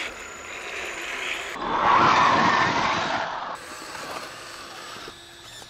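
Radio-controlled scale crawler trucks driving over sand and rocks: electric motors and gears running under load while the tyres scrabble and slip on the dirt. It comes in several short clips that cut off abruptly, the loudest from about one and a half to three and a half seconds in.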